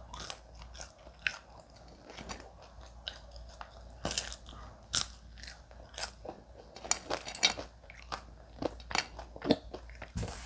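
A person chewing KFC french fries, with irregular crisp crunches and mouth clicks.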